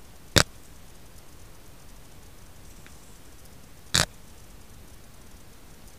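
Two sharp knocks about three and a half seconds apart: handling noise from a hand bumping the recording phone, over a steady low hiss.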